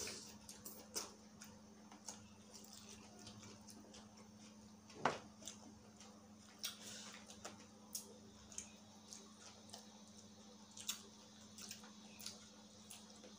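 Close-up eating sounds: people chewing and picking food apart with their fingers, giving scattered soft clicks and wet smacks, the loudest about five seconds in, over a faint steady hum.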